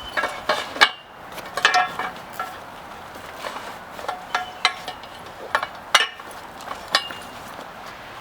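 Metal parts of a hammock stand clinking and knocking together as they are handled during breakdown: a string of sharp clinks, several with a brief metallic ring.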